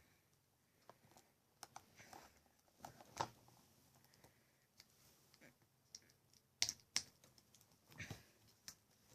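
Faint, sparse clicks and taps of small objects being handled, the sharpest about a third of the way in and a cluster near two thirds.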